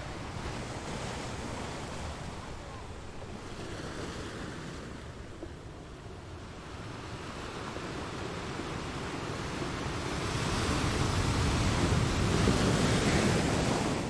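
Ocean surf, waves breaking and washing, with wind blowing. A bigger wave swells louder from about ten seconds in and falls away near the end.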